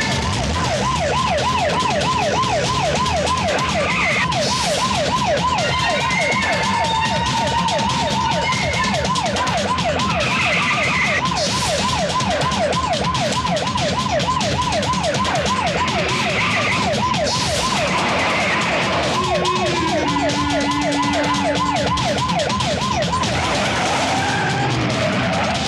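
Police siren yelping rapidly up and down, about four swings a second, breaking off briefly about two-thirds of the way through, over a steady low rumble of vehicles and a beat. A few short rushes of noise come and go.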